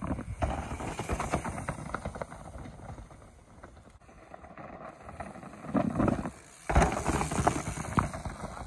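Mountain bike coming down a rocky dirt trail: tyres crunching over stones and the bike rattling, loudest over the last three seconds as the rider passes close. A similar spell of rattling comes in the first two seconds.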